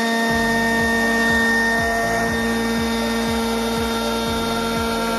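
CarveWright RAVEN CNC router's spindle running with a steady whine as its bit cuts into a wooden board. About a third of a second in, a lower repeating pulse starts, about three strokes a second.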